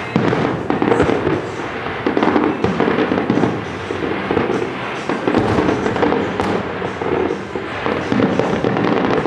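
Aerial fireworks show bursting in quick succession: many overlapping booms and crackles with no break between them.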